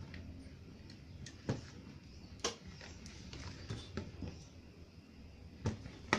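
Side cutters snipping and clicking on a computer power supply's wiring: a series of sharp, irregularly spaced snips, the loudest about two and a half seconds in and another near the end.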